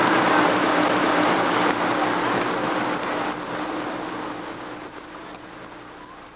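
Motorboat engine running at speed with water rushing past the hull, a steady hum under a wash of spray noise that fades out gradually.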